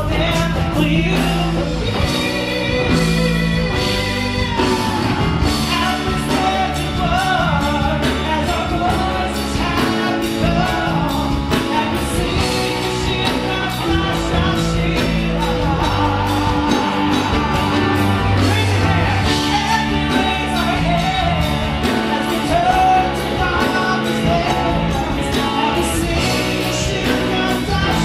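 Live rock band: a male lead voice singing into a microphone over electric guitar, bass guitar, drum kit and keyboard, all amplified through a PA, with a steady drum beat.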